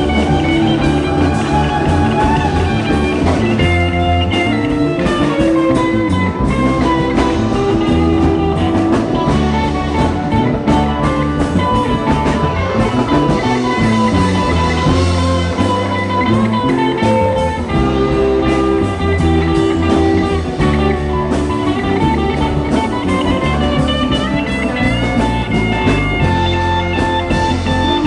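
Live rock band playing electric guitars, bass guitar and drum kit, with sustained electric guitar notes that bend and slide in pitch over a steady bass and drums.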